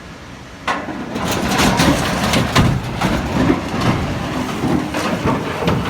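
A bridge collapsing under a heavily loaded truck: a sudden crash less than a second in, then a run of loud cracking and crashing impacts over a heavy rumble as the structure and truck come down.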